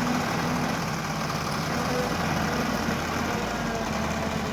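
Heavy diesel engine running steadily at an even, low speed.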